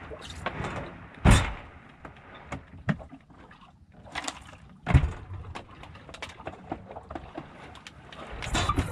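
Knocks and thumps on a small boat: two sharp, loud thumps, about a second in and again about five seconds in, with lighter clicks and knocks between them.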